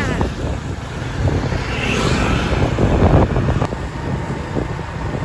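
Road traffic noise, cars passing in a steady low rumble with wind buffeting the microphone.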